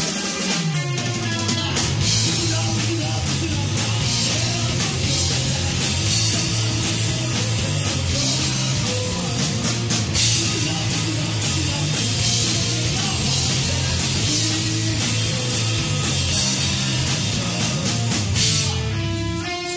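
A live rock trio plays: electric guitar, bass guitar and drum kit together, with cymbals and drum hits throughout. About a second before the end, the bass and most of the drums drop out, leaving the electric guitar strumming nearly alone.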